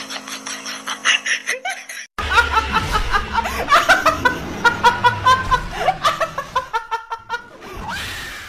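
A woman laughing loudly in quick, repeated bursts, starting after an abrupt cut about two seconds in. Before the cut there is a fast run of clicks over a steady hum.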